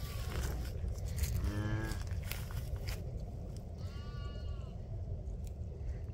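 Cattle mooing: a short, low moo about a second and a half in, then a higher, arched call about four seconds in. Rustling and clicks in the first three seconds, over a steady low rumble.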